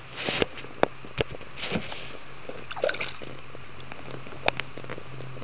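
Hooked brook trout splashing and thrashing at the water surface in a few short bursts, with several sharp clicks in between.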